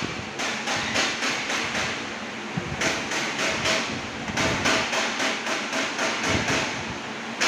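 Hammer tapping on a car's sheet-metal body panel in quick runs of blows, about four a second, with short pauses between runs, the metal ringing faintly between strikes: panel beating a dent out.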